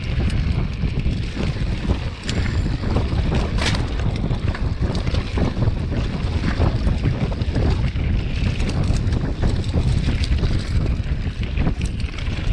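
Wind buffeting an action camera's microphone on a hardtail mountain bike riding down a rough dirt trail: a steady low rumble, broken by scattered sharp clicks and rattles from the bike and tyres over stones and bumps.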